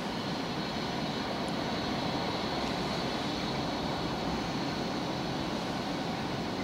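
Class 66 diesel-electric locomotive's two-stroke V12 engine working under load as it approaches hauling a container train, a steady drone growing slightly louder.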